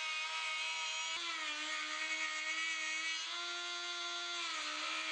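Flexible-shaft rotary tool whining at high speed as a small ball-shaped bit carves feather grooves in walnut, with a hiss of grinding. The whine dips slightly in pitch a few times as the bit bears into the wood, and there is one click about a second in.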